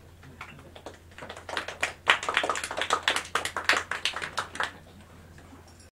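Scattered applause from a small live audience, swelling about a second in and dying away near the end, over a steady low hum.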